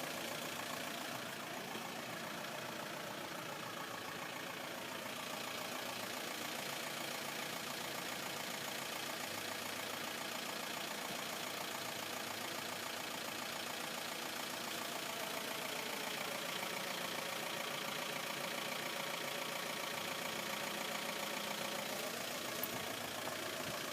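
Engine idling steadily, its pitch dipping slightly about two-thirds of the way in and rising again near the end.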